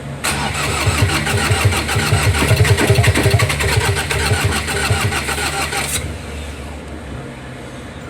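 Ford Ranger 2.2 diesel engine cranking on its starter for about six seconds, with a few heavier pulses midway, without settling into a run: a crank-no-start fault. After the cranking stops, a lower steady hum carries on.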